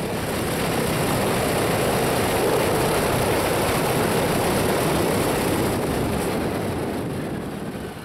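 Shvetsov ASh-82T radial piston engine of an Ilyushin Il-14P running on the ground soon after start-up, propeller turning. A steady, dense engine noise that swells over the first couple of seconds and eases off slightly near the end.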